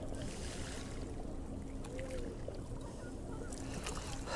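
Shallow seawater moving around a wading angler's legs, with a low steady rumble on the microphone and a faint steady hum underneath.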